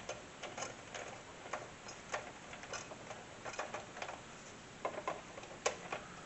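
Irregular small clicks and taps as a CPU cooler is handled and pressed onto its mount; the loudest click comes near the end. The cooler's seating is in doubt: it does not feel fully on.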